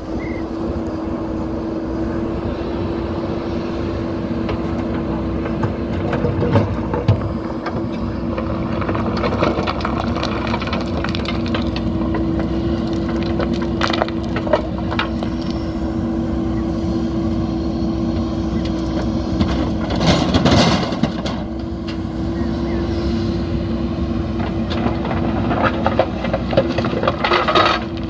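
JCB backhoe loader's diesel engine running steadily under load while its backhoe bucket digs into a pile of broken stone, with several bursts of rocks clattering and crunching against the steel bucket, the busiest near the end.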